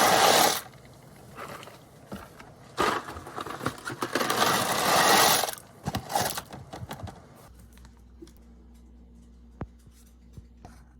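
Dry pasta poured into a pot, rattling in two pours: a brief one at the start and a longer one from about three seconds in, lasting about three seconds. Then a few light clatters and a faint low hum.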